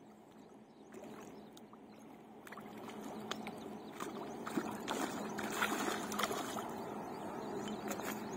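A carp hooked on a hand line thrashing at the surface close to the bank, splashing and sloshing the water. Quiet at first, the splashing builds from about three seconds in and is loudest around the middle.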